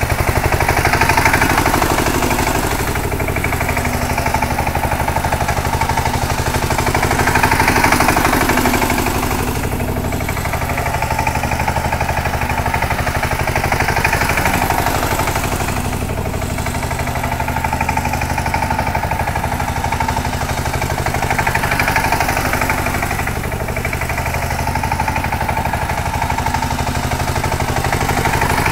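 Two-wheel power tiller's single-cylinder diesel engine running steadily with a rapid chug as the machine is driven round in circles over straw, growing louder and softer every six or seven seconds as it comes round.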